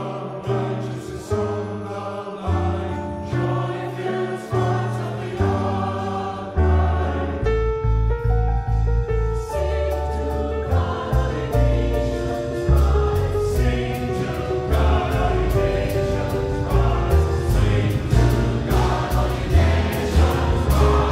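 Mixed choir singing with a jazz combo of piano, upright double bass and drums, the bass line stepping through notes from about a third of the way in.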